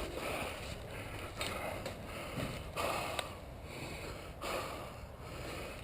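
Footsteps and rustling gear of a person moving on foot, coming in a rough rhythm of about one step a second.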